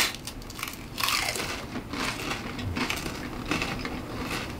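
Crisp crackers being bitten and chewed by two people, a run of irregular crunches.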